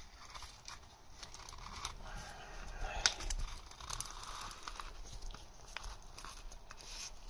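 Light rustling and scattered small clicks from gloved hands handling a steel piston ring compressor and its ratchet handle.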